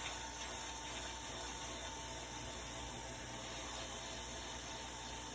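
Hot air rework station blowing a steady hiss of air while preheating a laptop motherboard, with a faint steady tone.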